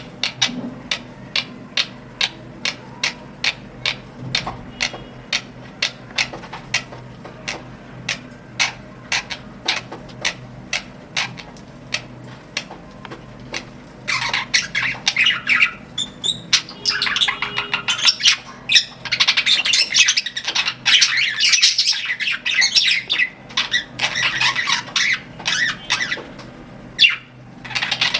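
Budgerigars chirping: first a steady run of short, sharp chirps, two or three a second, then about halfway in a loud, dense warbling chatter that keeps going until near the end.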